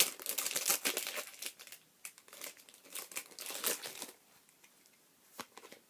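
Foil trading-card packet being torn open and crinkled by hand, a dense crackling for about four seconds that then thins to a few small rustles.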